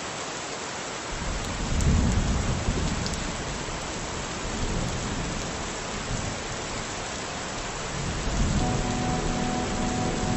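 Steady rain with thunder rumbling low. The thunder starts about a second in, swells around two seconds and swells again near the end.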